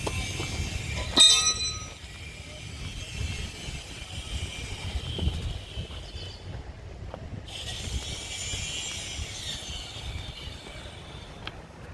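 Steady low rumble with a hiss, and one sharp ringing metallic clank a little over a second in.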